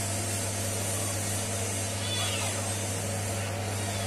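Faint wavering cry like a cat's meow about two seconds in, over a steady low electrical hum and an even hiss.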